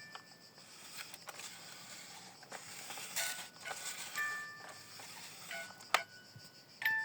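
A sparse chiming melody of single bell-like notes, like a glockenspiel or music box, with scattered clicks and a short hiss about three seconds in.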